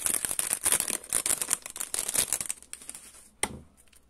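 Clear plastic packaging bag crinkling and rustling, with many small clicks, as a small plastic case of nail charms is worked out of it. A single sharp tap comes about three and a half seconds in, and then the handling goes quiet.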